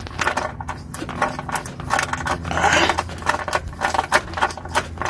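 Socket ratchet and metal fastener handled behind a car's front wheel: irregular sharp clicks with a short stretch of scraping in the middle, over a steady low hum.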